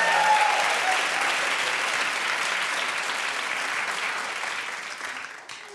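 Studio audience applauding and cheering, dense clapping that gradually dies away and stops near the end.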